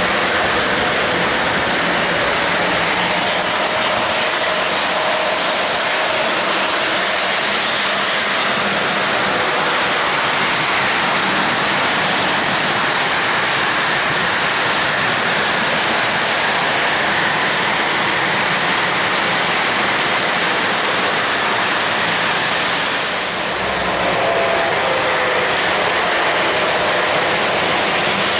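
O-gauge model train cars rolling close past on metal track: a steady, loud clatter of metal wheels on the rails. It drops briefly about two-thirds of the way through.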